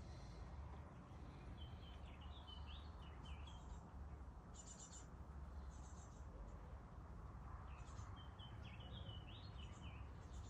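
A songbird singing two short phrases of quick, high chirping notes, a few seconds apart, over a faint steady low rush.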